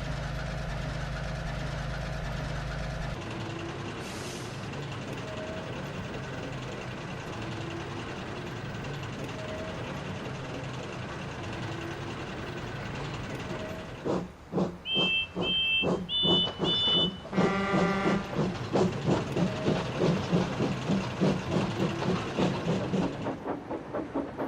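A steam locomotive stands hissing steam, then blows several short whistle toots and starts away with a regular puffing exhaust beat.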